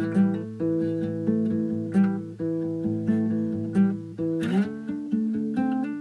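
Background music: an acoustic guitar picking notes over held chords, changing chord with an upward slide and a strum about four and a half seconds in.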